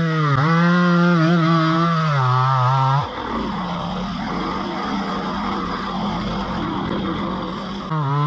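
Chainsaw running at full throttle for about three seconds, its pitch wavering as it works, then dropping back to a lower, steadier running; it is opened up again briefly near the end.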